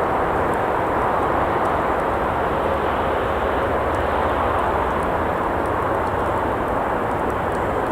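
Steady rumble of traffic on a nearby road, with faint scattered crackles from a campfire.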